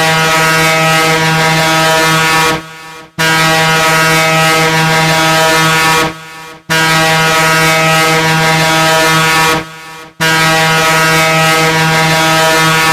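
A low horn, like a ship's horn, sounding four long steady blasts of about three seconds each with short breaks between them.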